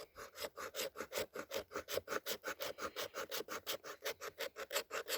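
The sharp spine on the back of a Leatherman Supertool's saw blade scraping fatwood in quick, even strokes, several a second, raising fine scrapings used as tinder to catch a spark.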